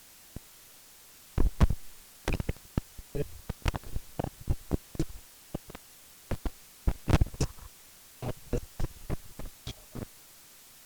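A quick, irregular run of sharp clicks and knocks, some in close pairs and clusters, starting about a second and a half in and stopping just before the end.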